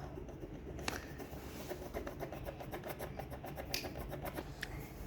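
Drawing on paper: fast back-and-forth scribbling strokes, about eight a second, with a couple of sharper taps, over a low steady hum.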